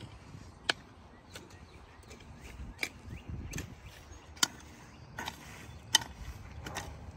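A series of sharp, short clicks or light knocks at an uneven pace, roughly one every three-quarters of a second; the loudest come about a second in and again near the middle and near the end.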